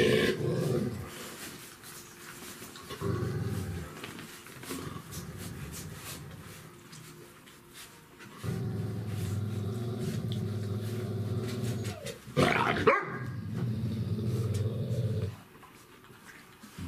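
Dogs growling and barking: a mother dog and her puppies, with a loud bark right at the start, a long low growl through the second half, and a sharp high yelp in the middle of it.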